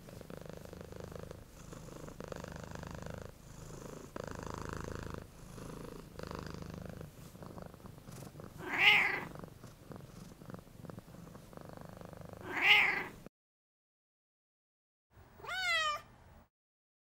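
Ginger tabby cat purring close to the microphone, the sound changing with each breath in and out, with two short meows about nine and thirteen seconds in. Near the end a kitten gives one high mew that falls in pitch.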